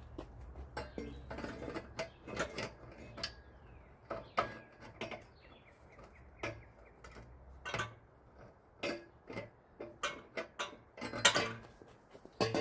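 Metal parts clinking and knocking against each other as they are handled: a string of separate knocks, the loudest about eleven seconds in, over a low steady hum that stops about two-thirds of the way through.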